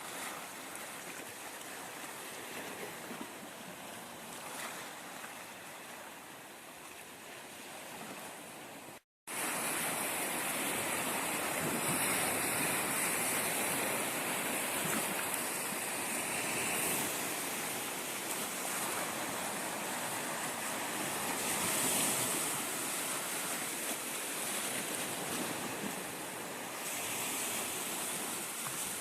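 Black Sea waves washing onto the shore, a steady rushing noise. There is a short break about nine seconds in, after which the surf is louder.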